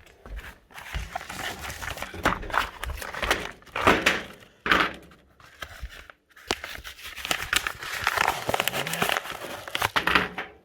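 A mail package being torn open by hand and its packaging crinkled and rustled as the contents are taken out, with a pause about six seconds in.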